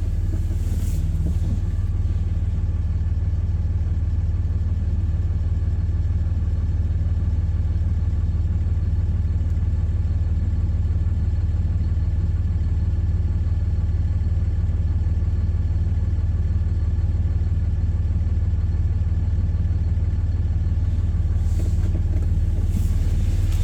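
A parked four-wheel-drive vehicle's engine idling, heard from inside the cab: a steady low rumble.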